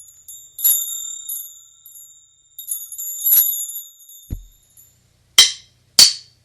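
High-pitched metallic chime tones struck about four times, each ringing on. They are followed by a low thud and two short hissing swishes near the end.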